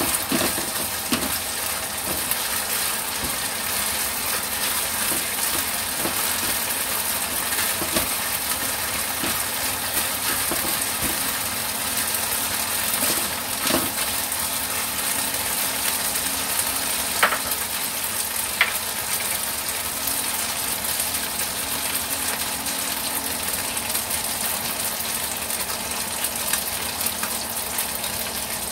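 Minced pork sizzling steadily in hot oil in a wok, with a spatula scraping and clicking against the pan as it is stirred.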